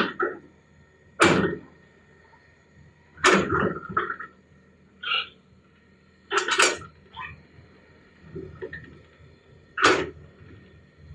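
Excavator at work: a steady engine hum with a short, loud scraping or knocking burst about every two to three seconds.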